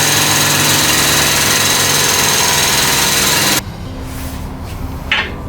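Shop press running loudly and steadily as it drives a new suspension bushing into a lower control arm, then cutting off suddenly about three and a half seconds in.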